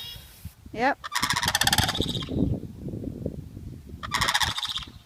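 Sandhill cranes calling: a loud, rolling, rattling bugle about a second in, and a shorter one near the end.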